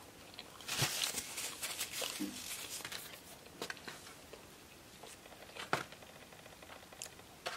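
Eating sounds up close: chewing and fingers picking through fried chicken fingers and crinkle-cut fries in a foam takeout box, with a loud rustle about a second in and a few sharp clicks and taps after.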